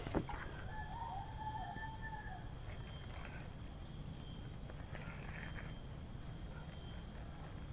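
Steady high-pitched drone of insects over a low steady rumble, with a drawn-out animal call about a second in and a few faint crackles and rustles from a smouldering dry-leaf tinder bundle being handled.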